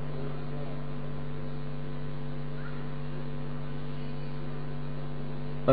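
Steady low electrical mains hum from the microphone and public-address system, holding at an even level.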